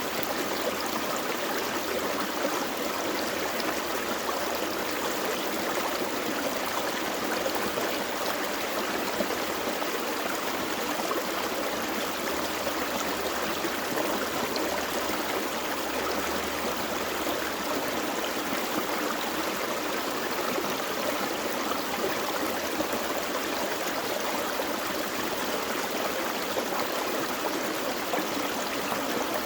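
Small forest stream flowing over rocks: a steady rush of water with gurgling and trickling.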